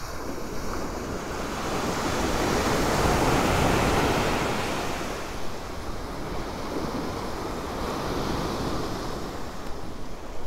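Ocean surf breaking and washing up the beach. The wash swells to its loudest about three to four seconds in, then eases off.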